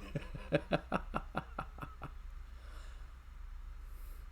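A man laughing, a quick run of about ten short 'ha' pulses that stops about two seconds in.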